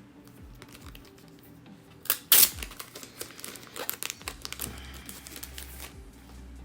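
Packaging crinkling and rustling as photo prints are handled, with a loud tearing crinkle a little over two seconds in and a busy run of rustles after it.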